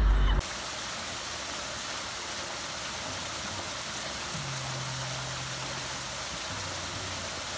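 Steady rush of water from an artificial rock waterfall splashing into a swimming pool, after a low traffic rumble that cuts off less than half a second in. A faint low hum comes in about halfway through.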